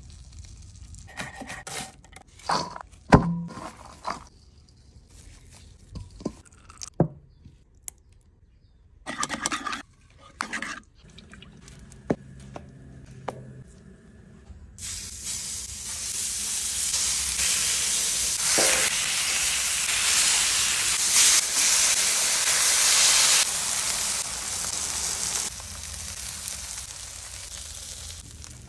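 Scattered knocks and clicks of food and utensils being handled, then from about halfway food frying on a flat-top griddle: a loud, steady sizzle that eases off near the end.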